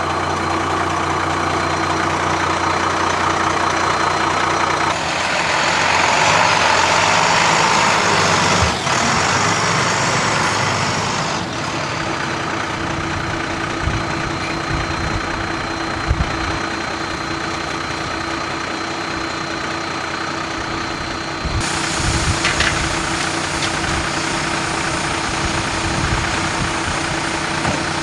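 Fire department duty car's engine running with steady road noise, heard from inside the cabin. A louder rushing hiss comes in about five seconds in and lasts roughly six seconds.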